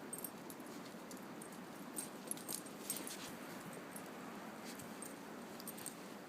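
A dog's collar tags jingling in short, scattered bursts over a steady hiss.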